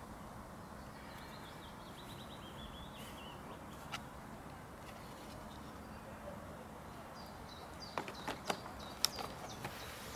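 A small bird chirps in a brief quick trill about a second in, over steady quiet outdoor background. Near the end, a run of sharp clicks and knocks as the plastic walkie-talkie is set down into its clear plastic packaging tray.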